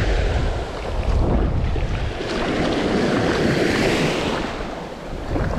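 Surf washing onto a beach, with wind buffeting the microphone in a heavy low rumble.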